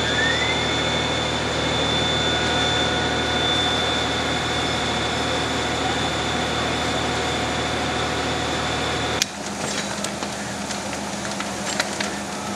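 Fire engine running with its water pump engaged: a steady engine drone under a high, steady whine that rises briefly just after the start. About nine seconds in, it cuts to the crackling of a burning house, with scattered sharp pops.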